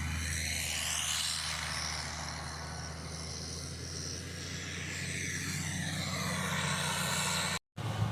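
Heavy earthmoving machine's engine running with a steady low hum and a hiss above it that sweeps up and down. A sudden break near the end is followed by an engine running at a slightly different pitch.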